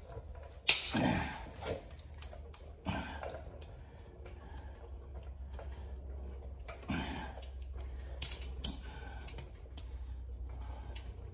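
Locking pliers clicking and metal creaking as a seized broken stud is worked back and forth in a cast-iron cylinder head, with the loudest sharp click a little under a second in and a couple more clicks later on.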